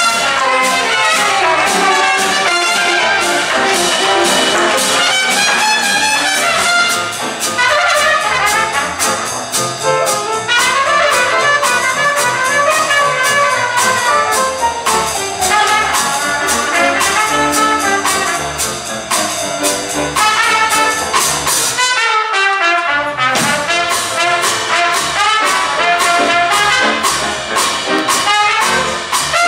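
Traditional jazz combo playing, with a trumpet solo over piano, string bass and drums keeping a steady beat. The rhythm section drops out for a moment about three quarters of the way through, under a rising trumpet line.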